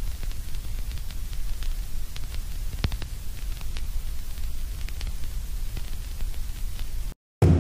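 Television-static sound effect: a steady hiss over a low hum, with scattered faint crackles, cutting off suddenly near the end.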